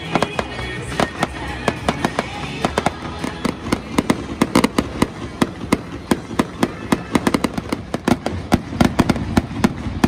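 Fireworks display going off overhead: rapid pops and bangs, many a second, growing thicker and louder about four seconds in.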